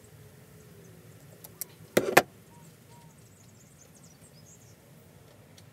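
A few small metal clicks, then a short clatter of sharp metal knocks about two seconds in, as slip-joint pliers work a steel suspension rod into the axle block of a live-steam locomotive's driver wheelset. Faint bird chirps sound in the background.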